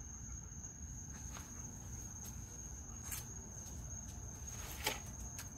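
Insects trilling in one steady high-pitched note over a low background hiss, with a few faint ticks.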